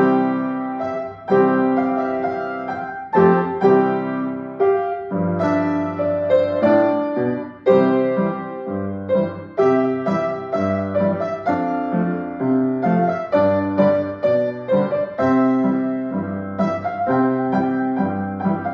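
Grand piano played four hands, two players at one keyboard: a steady flow of struck notes and chords, each ringing and fading into the next.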